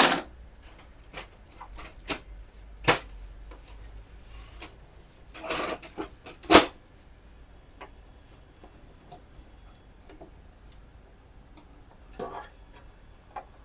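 Sharp plastic clicks, knocks and short scrapes as a printer's plastic covers are worked loose and pried off, with the loudest snaps at the start, about three seconds in and about six and a half seconds in.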